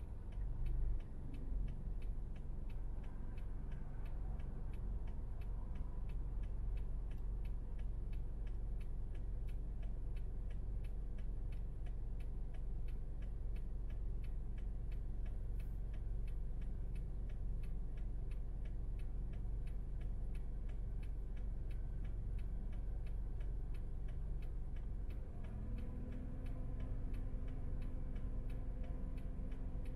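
Car turn-signal indicator ticking steadily, about two clicks a second, over the low hum of the idling engine heard inside the cabin. A steady low drone joins in near the end.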